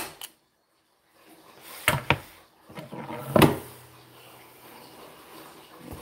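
Manual hand staple gun firing staples through upholstery into an armrest: a sharp snap at the start, then more snaps about two seconds and three and a half seconds in, the last the loudest. Faint rustling of the cover material follows.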